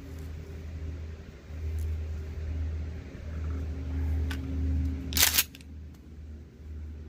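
Tractor engine running as it goes along the road, a steady low drone. About five seconds in, a brief loud rustling burst stands out above it.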